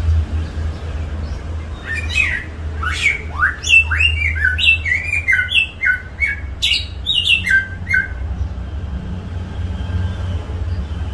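A songbird sings a fast, varied phrase of short whistled notes mixed with sharp clicks, from about two seconds in until about eight seconds in. A steady low hum runs underneath.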